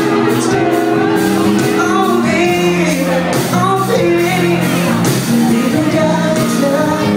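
Live band playing a song: a singer's voice over electric guitar and a steady drum beat with cymbals, ringing in a large hall.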